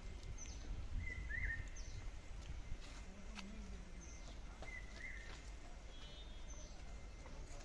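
Faint birdsong from the trees: a short phrase, a high downward chirp followed by a lower wavering note, repeated about every three to four seconds over a low steady background rumble.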